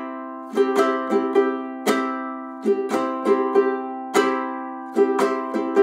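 Ukulele strummed chords in the chorus strumming pattern: an accented strum followed by a quick run of down-up strums, the chord ringing between them, repeating about every two seconds.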